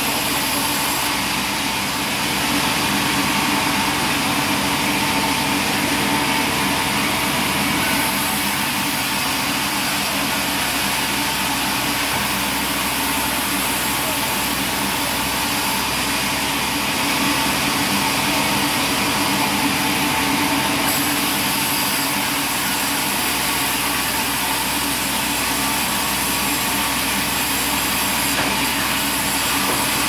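Sawmill band saw running steadily, a constant motor hum under the hiss of the blade as boards are fed through and cut, the high hiss brightening and easing every several seconds.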